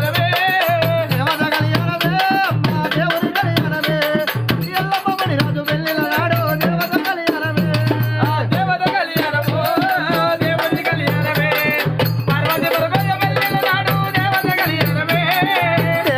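Telugu folk devotional music: a jamidika, the Baindla string drum, played in a fast rattling rhythm, with a voice singing along.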